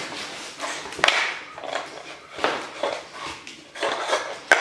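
Wrapping paper and a cardboard gift box being handled and opened: irregular rustling and crinkling, with a couple of sharp taps about a second in and near the end.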